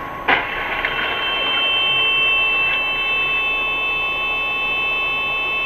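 Car collision heard through a dashcam: one sharp crash about a third of a second in, then a steady high-pitched tone that holds until the sound cuts off.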